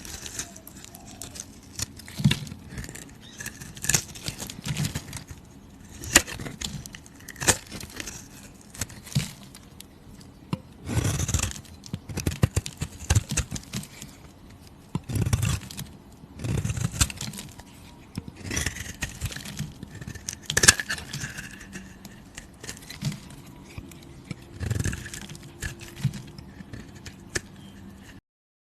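Close-up handling sounds: irregular scraping and crinkling with many sharp clicks scattered through, cutting off suddenly near the end.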